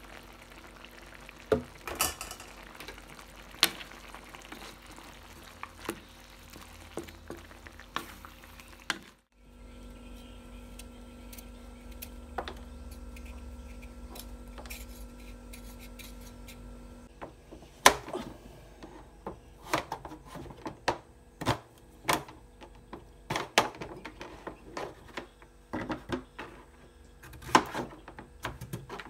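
Food simmering and sizzling in a wok, with a few clinks of the utensil against the pan. After a break and a stretch of steady low hum, a knife knocks repeatedly and sharply on a plastic cutting board as pumpkin is cut into cubes.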